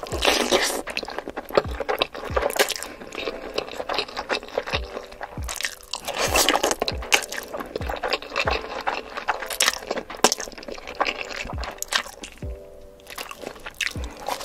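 Close-miked ASMR eating sounds: spaghetti in red sauce slurped and chewed, with crunchy bites. Background music with a steady thumping beat runs underneath.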